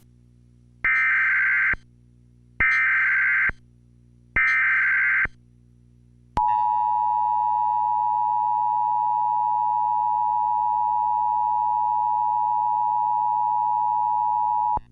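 Emergency Alert System tones: three short bursts of data-header warbling, then the EAS two-tone attention signal, a steady harsh dual tone that comes in about six seconds in and is held for about eight seconds.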